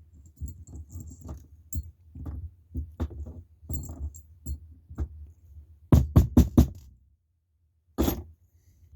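Small metal lock parts clicking and tapping as a pin-tumbler lock cylinder is taken apart. There are light scattered ticks, then a quick run of loud knocks about six seconds in and one more knock about two seconds later.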